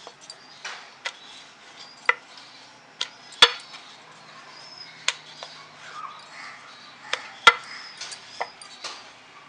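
Wooden rolling pin rolling out dough on a steel plate, clacking against the metal in about ten sharp, irregular knocks. The loudest knocks come about three and a half and seven and a half seconds in.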